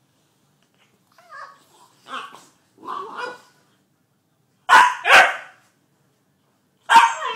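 Puppy barking: starting about a second in, three softer short yaps, then two sharp barks in quick succession about five seconds in, and another loud bark near the end.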